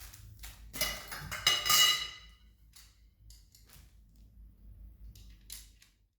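Metal light-stand parts clinking and clattering as they are handled, with a burst of ringing knocks about a second in, followed by a few scattered light clicks.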